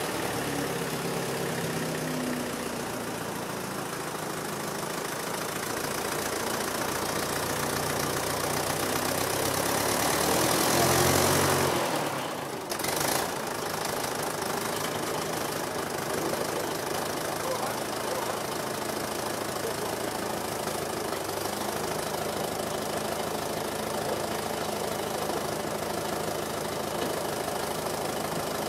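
Doe Triple D tractor's twin Fordson Super Major diesel engines running with a knocking diesel clatter as it pulls out of the barn under power. It gets louder about ten seconds in, drops back sharply around twelve seconds, then settles to a steady run.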